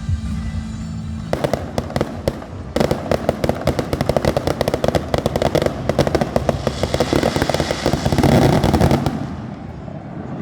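Fireworks going off in a rapid, dense crackling barrage of bangs that starts about a second in and stops shortly before the end, over music.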